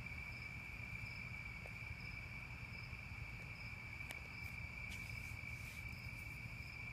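Crickets trilling steadily in a night-time insect chorus, with a fainter higher chirp repeating a little more than once a second.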